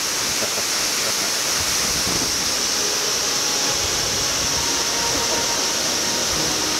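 Steady, unbroken rush of a tall waterfall pouring into a pool below.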